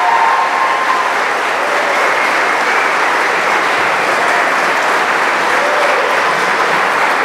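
Audience applauding steadily, with a few faint voices audible over the clapping.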